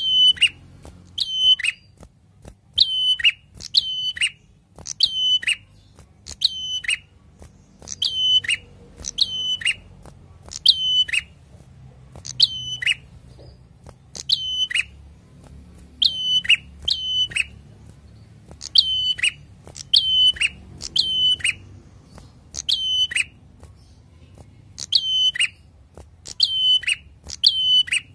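Caged prenjak calling over and over: short, sharp notes, each dropping quickly in pitch, about one a second, with a few brief pauses.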